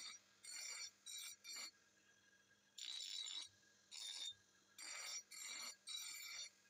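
Bench grinder's stone wheel grinding a steel axe head in a series of short passes: bursts of high, ringing, hissing grinding, each under a second, with brief lulls between them when the steel is lifted off the wheel.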